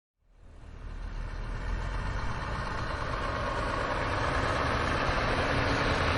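Heavy machinery's diesel engine running steadily, fading in over the first second or so.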